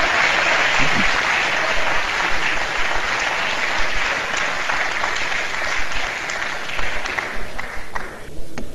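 Legislators applauding the speaker just called to the floor: steady applause that thins to a few scattered claps and dies away near the end.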